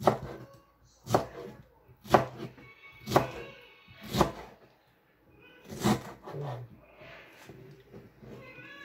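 Kitchen knife slicing through peeled pineapple and knocking on a plastic cutting board: six sharp chops about a second apart.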